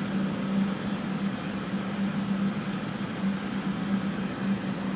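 Fume ventilation fans running steadily: an even whoosh with a steady low hum.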